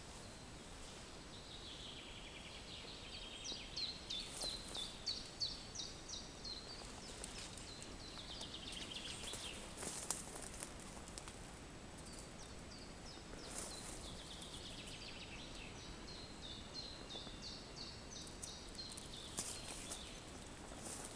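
A songbird singing two long phrases of rapid, repeated high chirps, the second starting a few seconds after the first ends, over a faint outdoor background with a few small clicks.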